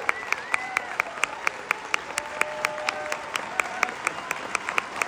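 Large audience applauding, with one pair of hands clapping close by in sharp, regular claps, about four or five a second.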